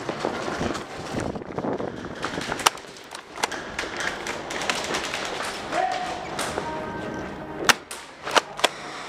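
Airsoft gunfire during close-quarters play: a handful of sharp cracks, the last three within about a second near the end, over the rustle and scuffing of a player moving quickly.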